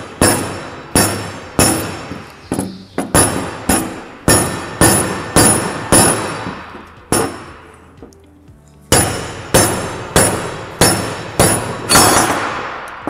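Rubber mallet repeatedly striking a turbocharger's bearing housing to knock the tight-fitting part free of its cast-iron turbine housing. The blows come at about two a second, each with a short ringing decay, with a pause of about a second and a half past the middle.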